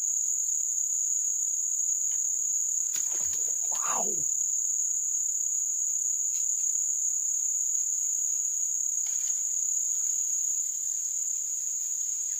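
A chorus of insects, likely crickets, making one steady, unbroken high-pitched shrill, with a couple of faint clicks over it.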